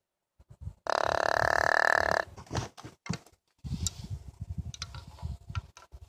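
A deer grunt call blown once in a long, steady grunt about a second in. Then, from about halfway on, a pair of rattling antlers clacking and grinding together in an irregular run of clicks and knocks, to rattle in a rutting buck.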